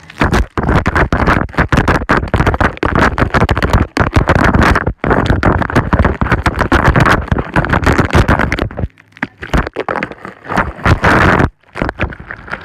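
Water from a garden hose spraying straight onto a phone while it records, battering its microphone: loud, harsh crackling noise that drops away briefly a few times.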